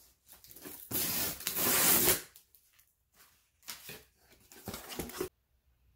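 Scissors slitting the packing tape along the top seam of a cardboard shipping box: a loud tearing rasp about a second in, lasting about a second. Then shorter scraping and rustling as the cardboard flaps are worked open.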